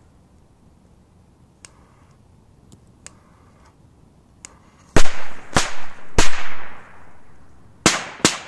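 Small firecrackers going off one after another: a few faint pops, then five sharp bangs, three about half a second apart starting about five seconds in and two more near the end, each trailing off in a short echo.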